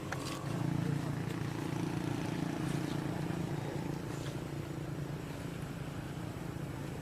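A motor vehicle's engine running at a steady pitch. It grows louder about half a second in and eases off slightly near the end, with a few faint clicks over it.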